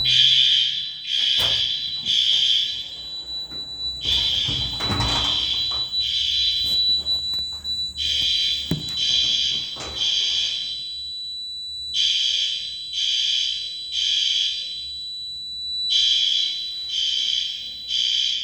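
Building fire alarm horns sounding during an alarm test, in the temporal-three evacuation pattern: three high blasts, a pause, then three more, repeating about every four seconds. A steady high tone runs underneath.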